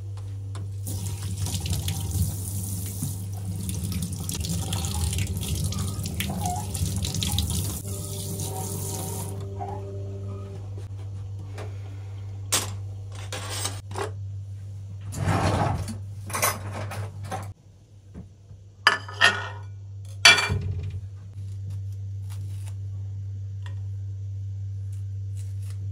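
A pull-down kitchen faucet runs into a stainless-steel sink for about eight seconds, then is turned off. A few short knocks and clatters of handling on the counter follow, over a steady low hum.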